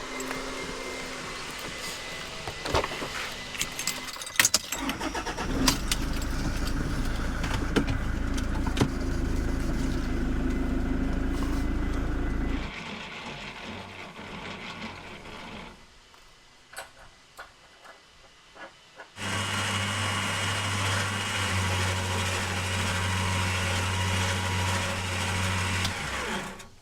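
Electric winch motor running in two long steady stretches, hauling the car up, with clicks and clanks of the cable and hook in the quieter gaps between.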